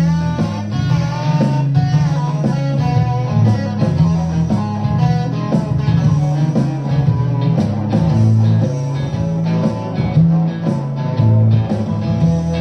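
Solid-body electric guitar played through an amplifier, improvising with held notes over a changing low line.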